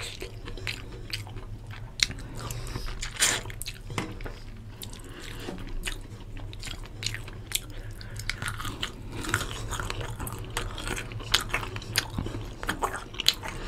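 Close-up chewing and wet mouth sounds of rice and chicken curry being eaten by hand, with many short, sharp clicks scattered throughout, over a steady low hum.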